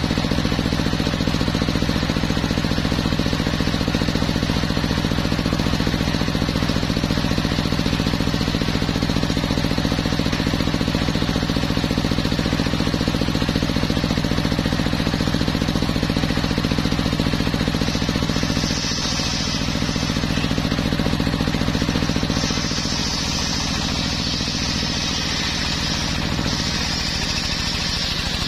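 Homemade circular sawmill running with a steady, even mechanical drone. Past the middle, a higher-pitched noise sets in, briefly at first and then for most of the last few seconds, as the blade cuts through a teak log.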